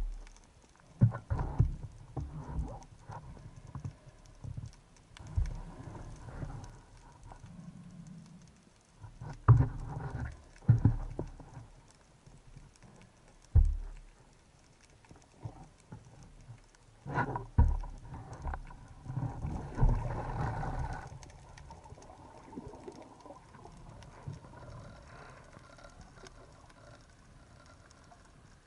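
Underwater handling noise of a speargun carrying a camera: irregular knocks and low thumps in clusters, with a softer hissing spell about two-thirds of the way in.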